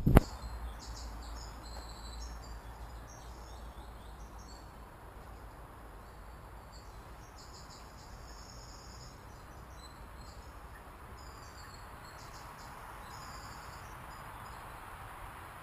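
Crickets chirping in high, rapid pulsed trains that start and stop irregularly, over a faint steady background hiss.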